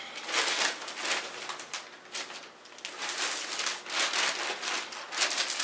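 Plastic mailer bag crinkling and rustling in irregular crackles as it is opened and a garment is pulled out of it.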